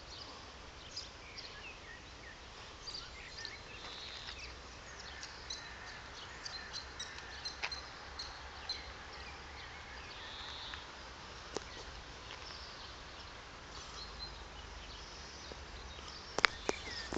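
Outdoor ambience of small birds chirping and singing with many short calls, over a low rumble, with a few sharp clicks near the end.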